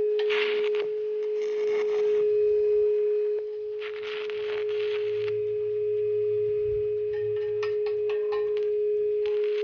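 Stick welding arc crackling and hissing in several short bursts, each lasting about a second, with a run of sharp crackles partway through, on thin square steel tubing. A steady high humming tone sounds throughout.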